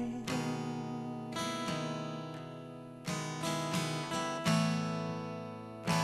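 Guitar playing a slow, gentle ballad accompaniment: single strummed chords every half second to a second, each left to ring and fade, with a fuller chord about four and a half seconds in. A sung word ends right at the start.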